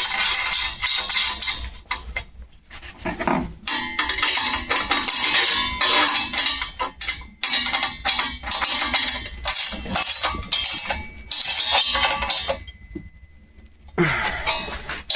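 Background music with irregular metallic clanking and clinking of steel parts and hand tools. The clatter stops for a moment a little before the end.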